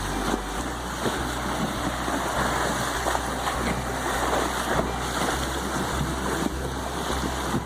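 Water splashing and rushing, with wind noise on the microphone.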